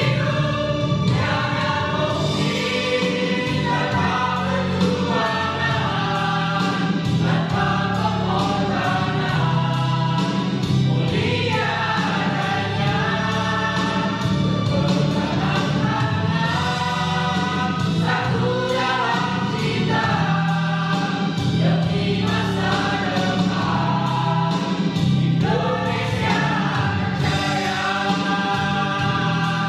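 A small mixed choir of men and women singing together, accompanied by an electronic keyboard.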